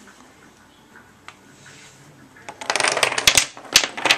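A homemade contraption set going: after a quiet start, a quick clatter of small hard objects clicking and rattling against each other begins about two and a half seconds in, with a few louder knocks near the end.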